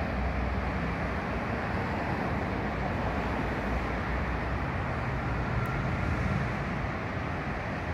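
Steady outdoor rumble of road traffic mixed with the low drone of a distant train on the tracks.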